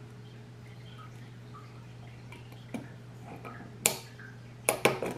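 Sharp metallic clicks of a snap ring being worked back on to hold the gear on a fuser unit: one click about four seconds in, then a quick run of three near the end.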